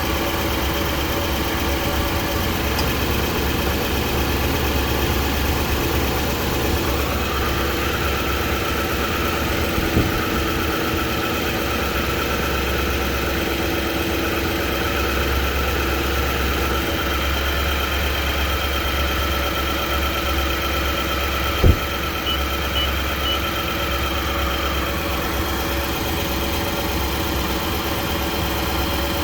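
2017 Nissan Titan Pro-4X engine idling steadily, with a faint whine coming and going in the middle and two sharp clicks, one about ten seconds in and a louder one a little past twenty seconds. The owner suspects an engine knock.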